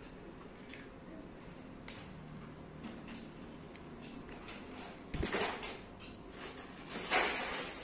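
Hands handling pens and stationery: a few faint clicks, then two brief scraping rustles about five and seven seconds in, the first with a soft thud.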